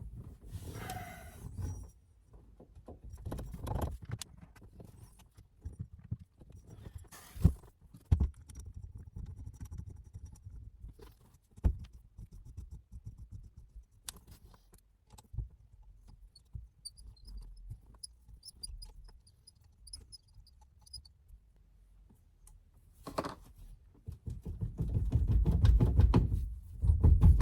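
Hand tools and loose metal parts clinking, knocking and rattling off and on while the steering wheel hub is being worked on, with louder handling noise near the end.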